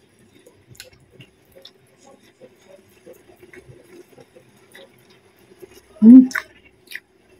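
Close-miked eating sounds: soft wet mouth smacks and clicks of chewing. About six seconds in comes a short, loud voiced sound from the eater, then a couple more clicks.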